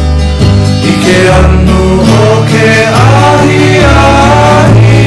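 Background music: a song with a wavering sung melody over low bass notes that change about once a second.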